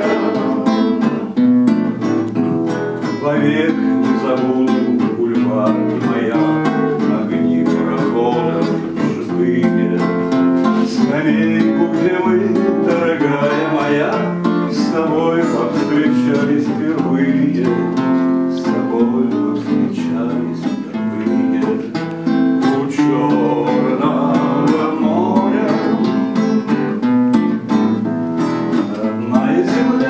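Acoustic guitar strummed steadily, accompanying a song.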